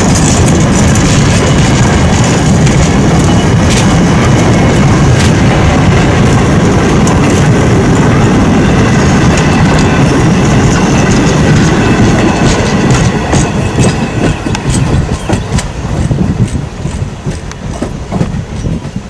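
Passenger train coaches rolling past close by, their steel wheels clacking over rail joints in a steady loud rumble that grows quieter and uneven over the last several seconds as the train moves away.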